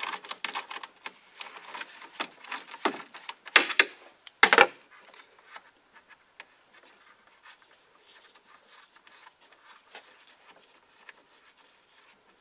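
A 3/8-inch-drive ratchet with a 10 mm socket clicking in quick runs as the bolt holding a plastic coolant overflow tank is worked loose. Two sharp knocks come around the middle, followed by faint scattered clicks and rubbing as fingers turn the bolt the rest of the way out.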